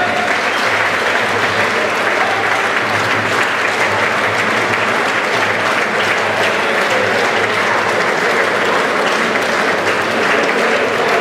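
Audience applauding steadily: dense, continuous clapping that holds at an even level throughout.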